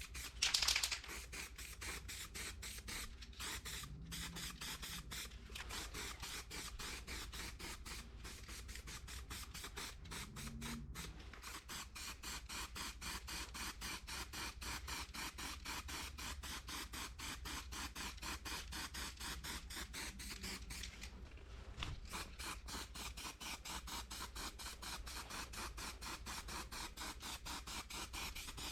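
Faint rhythmic scraping or rubbing, several quick strokes a second, kept up steadily, with a short brighter hiss about a second in.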